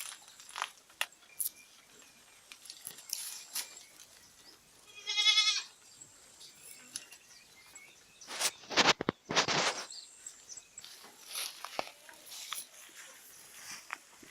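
A goat bleats once, a single wavering call about five seconds in. Around the middle come two loud bursts of rustling, crunching noise, with scattered small clicks and knocks throughout.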